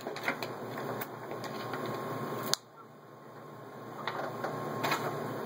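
Protective plastic film being peeled off a replacement laptop LCD panel as the panel is handled: scattered crackles and small clicks, with one sharp click about two and a half seconds in. A steady low hum runs underneath.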